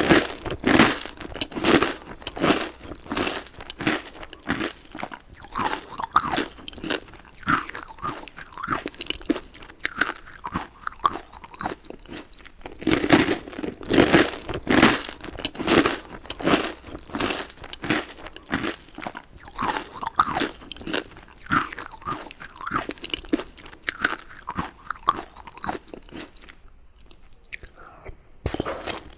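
Close-miked chewing and crunching of food in a person's mouth, a fast run of chews with a short pause near the end.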